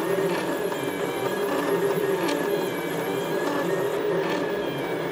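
DreamMaker OverLord Pro Plus delta 3D printer running a print: stepper motors whining in short tones that keep shifting in pitch, over a steady whir.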